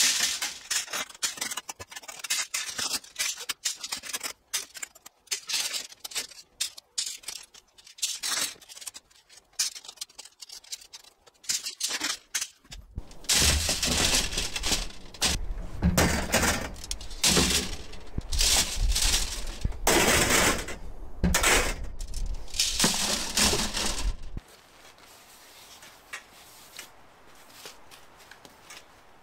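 Copper pipe being handled and uncoiled: many light clinks, rattles and scrapes of the tubing. About a third of the way in, a louder stretch of clatter over a deep rumble runs for roughly twelve seconds, then gives way to a low steady hiss with a few faint clicks.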